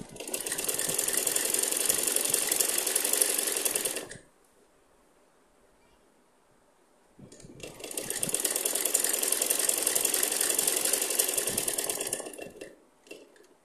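Domestic sewing machine stitching lace onto a shirt neckline, in two runs of about four and five seconds separated by a pause of about three seconds. The second run builds up gradually and tails off.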